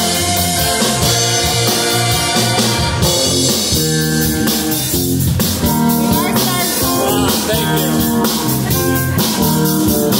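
Live rock band playing electric guitars, bass guitar and drum kit in an instrumental passage, with a lead guitar bending notes about six seconds in.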